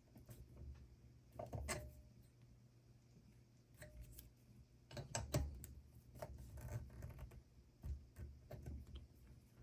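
Faint, irregular clicks, taps and short scrapes of metal against plastic as a pumpkin-carving saw blade is worked loose from its plastic handle.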